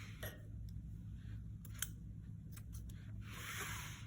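Scissors snipping ribbon: several sharp, separate clicks of the blades closing, with a short rustle of the ribbon near the end.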